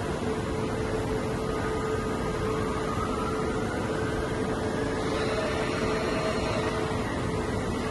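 Soraluce FP8000 travelling-column CNC milling machine running, giving a steady mechanical hum and hiss with one constant tone. A faint whine rises slowly in pitch around the middle.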